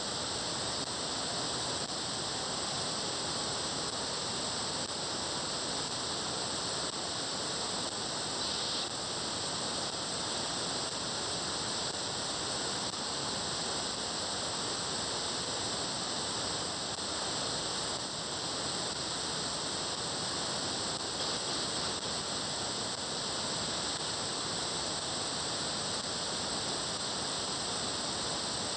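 Steady radio static: the hiss of an SDR receiver demodulating in upper-sideband mode near 436.7 MHz, with no satellite signal audible in it.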